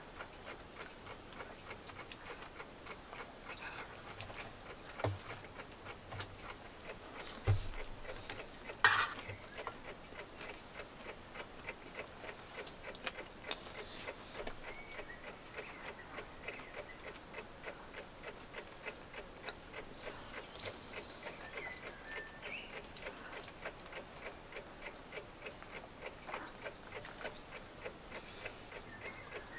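Clock ticking steadily, about two faint ticks a second, with a few soft knocks about a quarter to a third of the way in.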